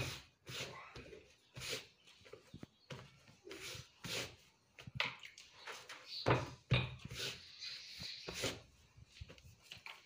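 Hands swiping and patting denim jeans flat on a cloth-covered surface: irregular rustling strokes, with a couple of dull thumps a little after the middle.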